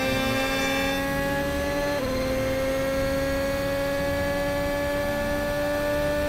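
Formula 1 car's engine at high revs under acceleration. The pitch climbs slowly and steadily, with one quick upshift about two seconds in, as in a high gear on a straight.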